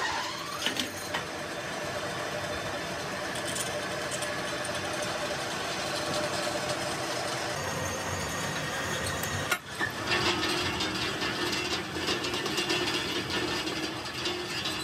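Workshop machinery running with a steady mechanical hum, rattling and ticking. The sound breaks off sharply about ten seconds in and a steadier, lower hum takes over.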